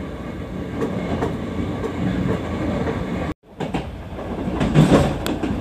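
Hankyu electric train running, heard from inside the front car: a steady rumble of wheels on rail. It breaks off abruptly about three and a half seconds in, then picks up again with louder clattering near the end as the wheels cross points.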